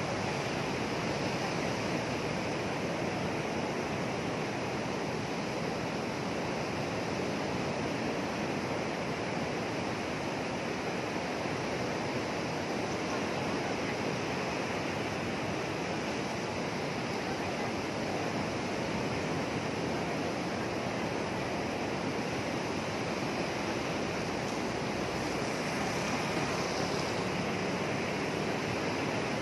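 Rough surf from a storm-driven sea washing onto a sandy beach: a steady rush of breaking waves.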